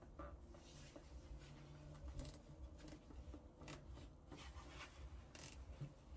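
Faint rustling of hands handling a bundle of wiring-harness cables, with a few short, soft clicks and scrapes.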